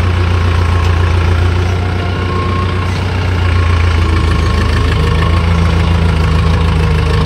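Tractor diesel engine running steadily, heard from the driver's seat beside its upright exhaust. About five seconds in, a steady higher hum joins the engine note.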